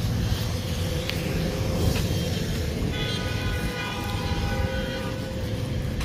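A horn sounds one long steady blast for about two seconds, starting about halfway in, over a steady low rumble of distant traffic and wind.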